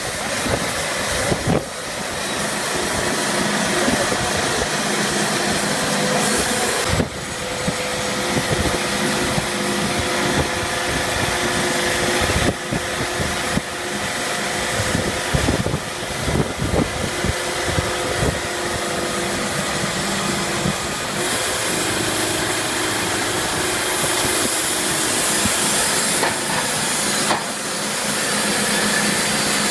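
Sawmill machinery running steadily: a loud, continuous hiss with a steady hum under it, broken a few times by brief knocks and dips.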